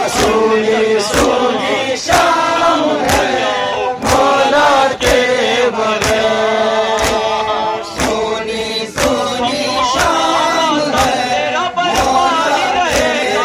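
A crowd of men chanting a Muharram noha in unison, with sharp, evenly paced slaps of chest-beating (matam) about twice a second.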